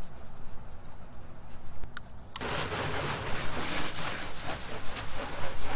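A steady spraying hiss on the kayak's plastic hull, starting suddenly about two and a half seconds in, as the boat is wet down with cleaner; a single click comes just before it.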